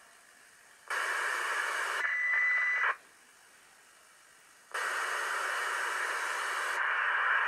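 Static hiss from a 2-metre FM amateur radio receiver, cutting in and out. It comes on about a second in for two seconds, with a steady whistle tone joining near its end, stops, and comes back about five seconds in, with near silence between.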